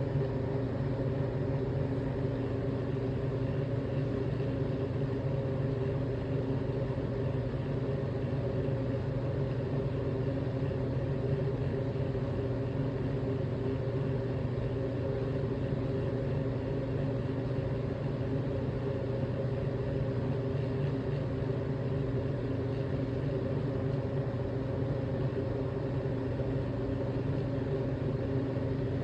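Steady low mechanical hum with a few constant pitches, unchanging throughout, with no separate burps or other events standing out.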